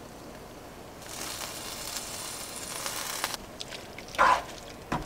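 Cooked pasta noodles sliding from a bowl into a hot skillet of creamy sauce, with a steady hiss for about two seconds that cuts off suddenly. Near the end come short wet squelches as tongs toss the noodles through the sauce.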